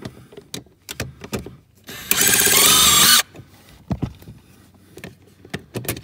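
Cordless impact driver spinning for about a second, its motor whine wavering in pitch, as it backs out the T25 screw holding the footwell carpet panel. Light clicks of handling before and after it.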